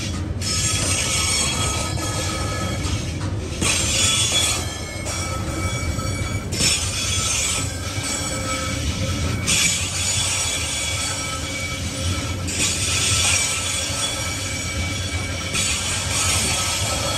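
Container wagons of a TasRail freight train rolling past: a steady rumble of steel wheels on rail, with high-pitched wheel squeal that comes and goes every few seconds.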